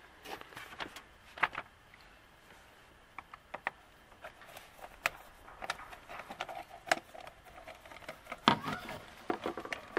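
Scattered clicks and light knocks of a screwdriver and hands working at the hose clamp on a pickup's plastic air box and rubber intake hose, with one louder knock about eight and a half seconds in.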